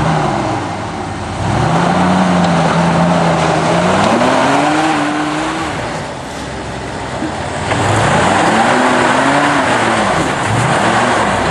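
Jeep CJ engine revving in long surges under load as it climbs a rock ledge off-road: the pitch climbs and holds, rises higher, drops away about six seconds in, then rises and falls again near the end.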